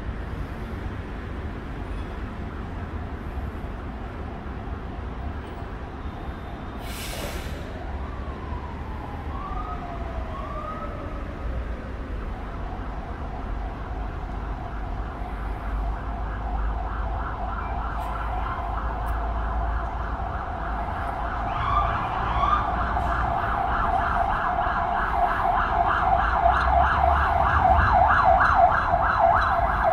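Low city traffic rumble, with a short hiss about seven seconds in. From about twelve seconds an emergency vehicle's siren comes in with a fast warble and grows louder toward the end.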